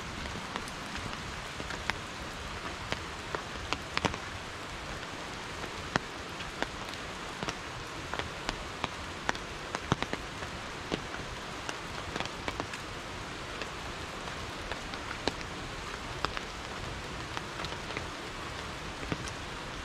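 Steady rain falling, with individual drops ticking sharply and irregularly close by.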